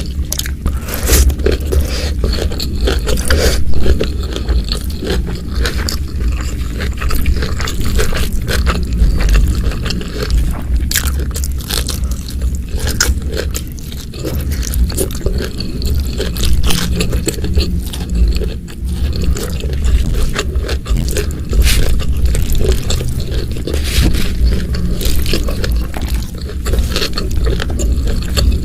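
Close-miked eating sounds: a person chewing and crunching food, with many sharp irregular clicks and scrapes.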